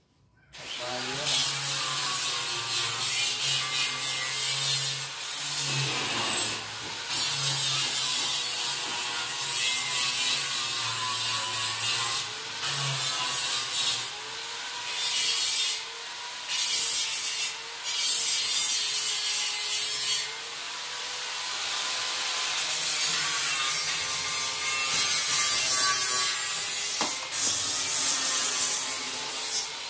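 Wooden railing balusters being sanded: a steady rasping scrape with a faint whine that rises and falls, broken by several short pauses.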